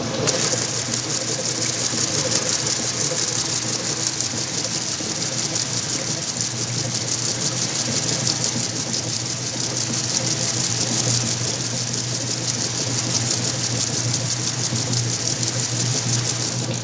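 Whirlpool washing machine running through its wash with a heavy load: a steady motor hum under a constant high hiss, the hum growing stronger about six seconds in.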